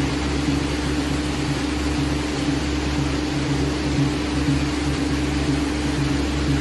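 Steady industrial hum and air hiss of an automotive paint booth, with robotic spray equipment working. A constant hiss sits under a steady mid-pitched hum, with a low drone that wavers unevenly.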